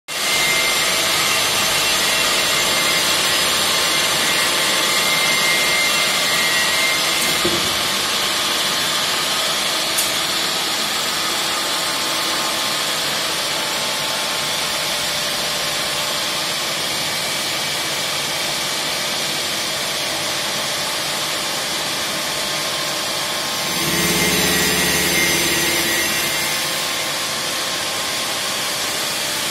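Water-cooled grinding tool on an old milling-machine head working the edge of a rotating granite disc: a steady grinding hiss over the machine's running hum. About 24 seconds in, a deeper hum swells for a couple of seconds and then fades.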